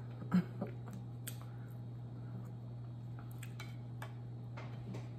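A metal fork clicking and scraping against a plate a few times, the sharpest click about half a second in, over a steady low hum.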